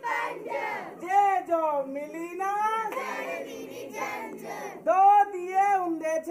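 Children singing in high voices, the melody rising and falling in short phrases.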